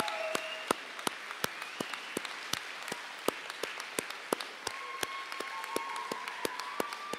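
Applause from a modest audience: distinct, separate hand claps several a second, with a cheer tailing off at the start.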